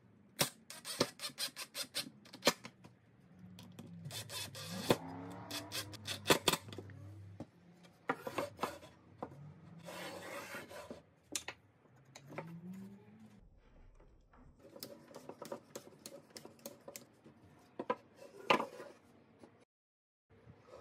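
Cordless impact driver driving screws into hardwood in several short spurts, each a rapid rattling hammer, with the motor's pitch rising as it spins up.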